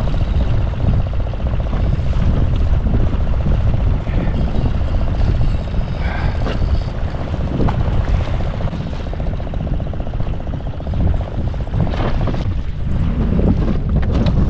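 Wind buffeting the microphone in a boat on open water, a heavy uneven rumble throughout. For several seconds in the first half it is joined by a fast, fine, even ticking.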